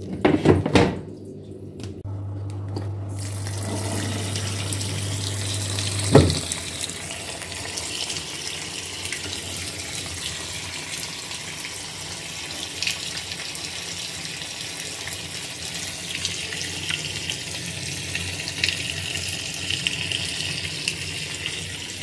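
Twin-tub washing machine draining its dirty wash water, a steady sound of running water. A low hum in the first seconds stops with a sharp click about six seconds in.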